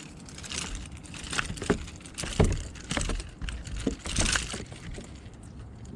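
A run of irregular knocks, clacks and rattles from fishing gear being handled in a boat, the loudest about two and a half seconds in.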